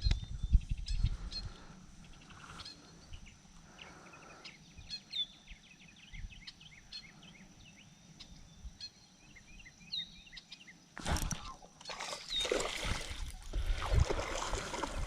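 Birds chirping and calling outdoors, with short high chirps and a repeated short hooked call several times. A few low handling thumps at the start, and about eleven seconds in a sudden loud rustle followed by louder rustling noise.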